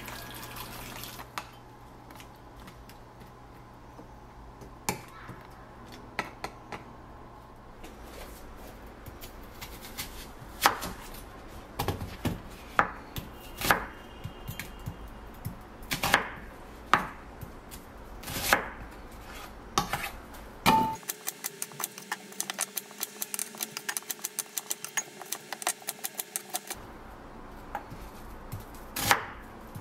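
Chef's knife cutting onions on a wooden cutting board: single knocks of the blade on the board every second or two, then a fast run of chops for about six seconds past the middle, and a couple more knocks near the end.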